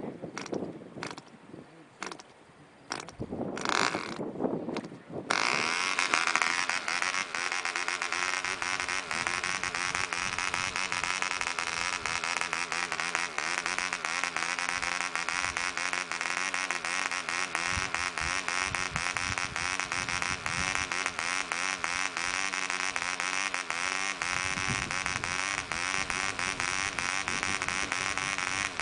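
Clanford Clan 0.48 cc model diesel engine with a 7x4 nylon propeller being hand-flipped, giving scattered pops and a brief sputter, then catching about five seconds in and running steadily to the end.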